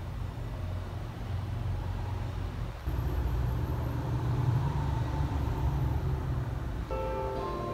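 A steady low rumble, which gets louder about three seconds in. Near the end, background music with plucked-string notes begins.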